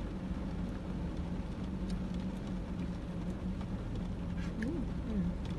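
Car engine idling, heard from inside the cabin as a steady low hum, with scattered faint clicks of plastic spoons and paper wrappers as people eat.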